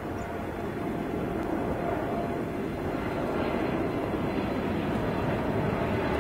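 Jet noise from a Boeing 747-8's four GEnx turbofan engines on approach, a steady roar that grows louder as the airliner comes nearer.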